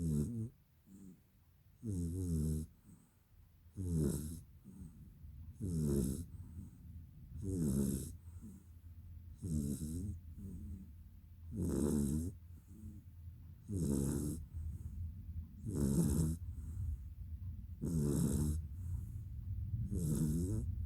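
Snoring during a nap, one snore about every two seconds, over a steady low hum.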